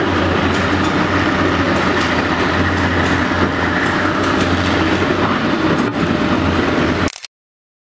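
Caterpillar 385BL ME excavator's diesel engine running steadily under load as the machine digs, a loud low drone with light clatter. The sound cuts off abruptly about seven seconds in.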